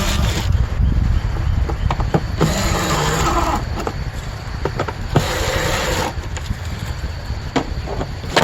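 Clicks, knocks and scraping of plastic HVAC-box parts being handled and screwed together, over a steady low rumble.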